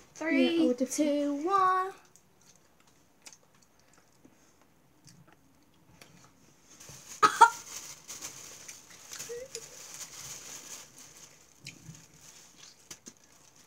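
A girl's high-pitched, wavering wordless vocal sound for about two seconds, then quiet. A short, sharp cry comes about seven seconds in, followed by faint rustling of a plastic bag near the end.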